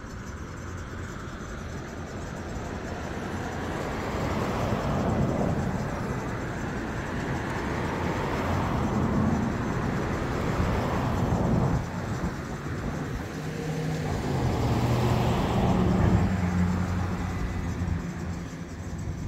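Road traffic: several cars passing one after another, the noise swelling and fading with each pass, with a low engine drone near the end.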